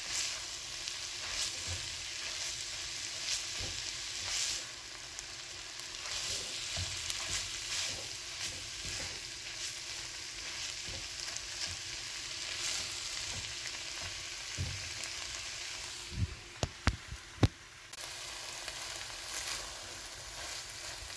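Chicken and shredded-vegetable spring-roll filling sizzling steadily in a frying pan of oil while it is stirred, with occasional scrapes of the stirring utensil. About three-quarters of the way through, a few sharp knocks stand out as the loudest sounds.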